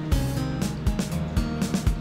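Background music with a steady low drum beat, about two hits a second, under held melodic notes.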